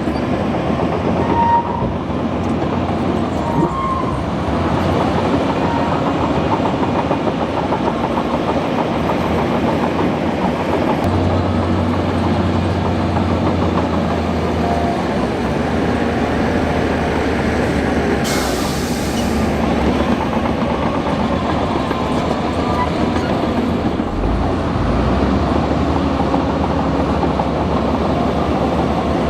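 Bulldozer at work: its diesel engine running steadily with the continuous clatter of its crawler tracks, and a short hiss about eighteen seconds in.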